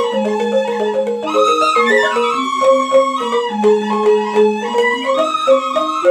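Balinese rindik gamelan: bamboo-keyed rindik xylophones in slendro tuning struck with mallets in a fast run of repeated notes, with suling bamboo flutes playing a sustained melody that glides up and down above them.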